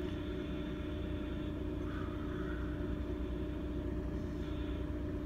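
Steady low rumble with a constant hum underneath.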